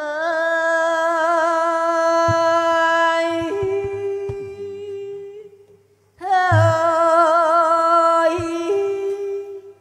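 A performer hollering the women's-style 'โห่' cheer of a Thai wedding procession: two long, high, wavering held vocal calls with a short pause between them, each stepping up in pitch near its end.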